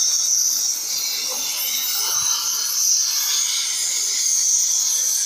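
Gas cutting torch hissing steadily as its flame cuts through steel plate.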